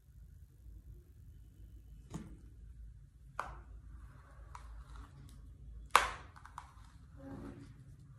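Philips flat iron being handled and clamped on a strand of hair: a few sharp plastic clicks and clacks, three of them, the loudest about six seconds in, with faint rustling between.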